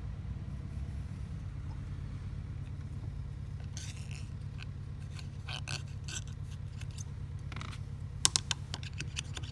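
Packing rings being handled and pressed down by finger into an airless sprayer pump's metal packing housing: a few scattered light clicks and scrapes, the sharpest near the end, over a steady low hum.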